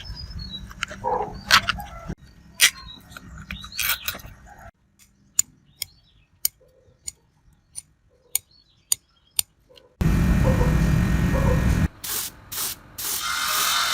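Small metal parts of a meat grinder clinking and tapping, with a run of sharp separate clicks about twice a second, then a loud steady hiss of about two seconds near the end, like a spray.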